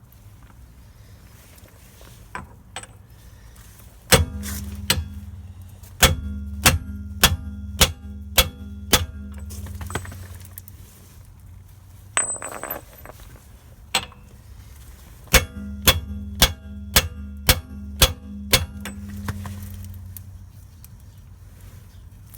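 Hammer blows on metal driving the new rear wheel bearing onto the stub axle: two runs of about six or seven ringing strikes, roughly two a second, with a couple of single blows before and between.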